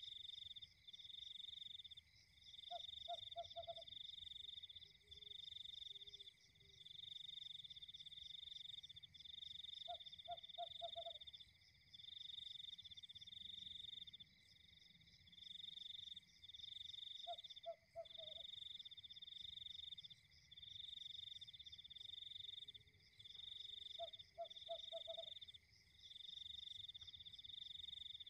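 Faint night chorus of insects trilling in steady high pulses, broken by short gaps. About every seven seconds a frog gives a short call of four quick croaking notes.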